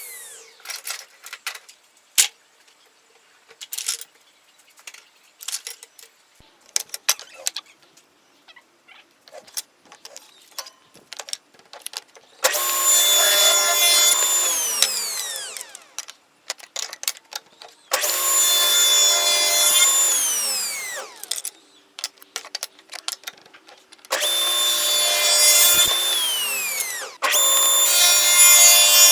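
Pieces of wood clicking and knocking as they are handled, then a power tool run four times in roughly three-second bursts, each starting abruptly and winding down in pitch as the motor coasts to a stop.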